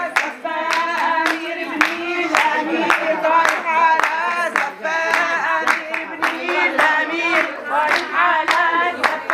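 A group of women singing together a cappella, with steady hand clapping about twice a second.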